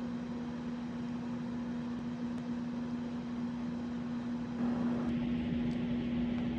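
Steady machine hum with a constant low tone over a hiss, growing a little louder about four and a half seconds in.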